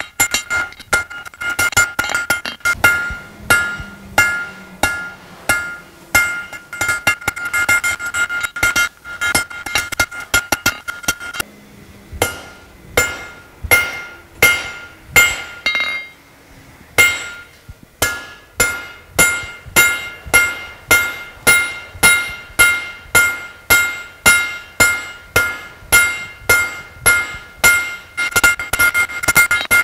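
Hand forging: a cross-peen hammer striking a hot steel bar on an anvil, each blow with a bright metallic ring from the anvil, drawing out and tapering the bar. The blows come quickly and unevenly at first, pause briefly twice near the middle, then settle into a steady two strikes a second.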